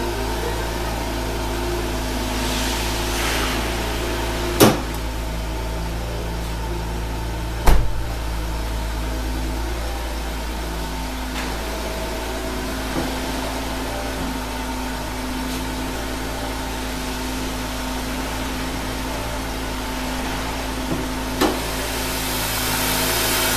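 A car engine idling with a steady hum, broken by a few sharp clacks while the hood is released and raised, the loudest about seven and a half seconds in. Near the end the engine sound grows louder and brighter as the hood comes up.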